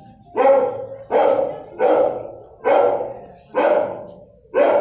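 A dog barking repeatedly in a tiled shelter kennel: six loud barks, roughly one a second, each echoing off the hard walls.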